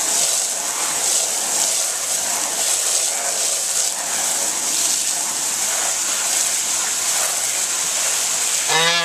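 Garden hose spraying a jet of water onto a goose and wet concrete, a steady hiss, with a brief pitched call right at the end.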